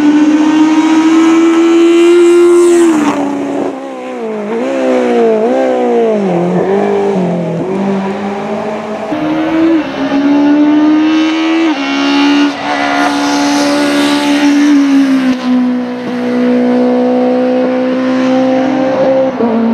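Honda CRX race car's naturally aspirated Honda S2000 F20 four-cylinder engine running hard at high revs. The pitch holds high, drops and climbs in quick swings about four seconds in, and steps up and down several times as the sequential gearbox shifts.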